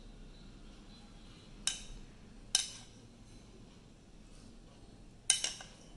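Kitchenware clinking three times, sharp and short, the last clink the loudest with a brief ring, while water is added to a glass bowl of dry pakoda batter mix.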